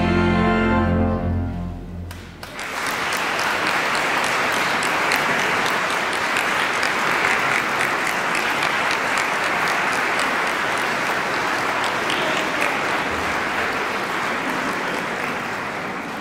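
A choir's last held chord of a carol dies away about two seconds in. The church audience then breaks into steady applause that eases off a little near the end.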